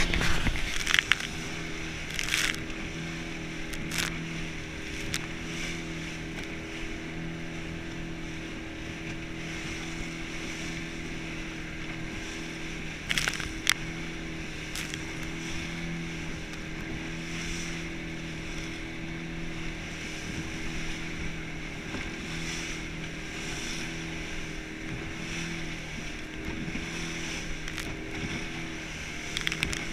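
Motorboat engine running steadily under wind and rushing spray as the open boat pounds through choppy water. Sharp slaps come as the hull hits waves, the loudest in the first second or two and about 13 seconds in.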